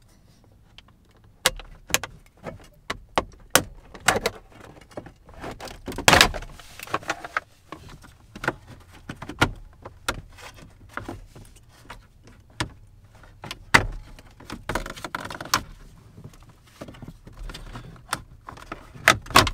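Irregular clicks, taps and clinks of a Phillips screwdriver and small hand tools working screws out of a car's plastic dashboard trim, with a few louder knocks, the loudest about six seconds in.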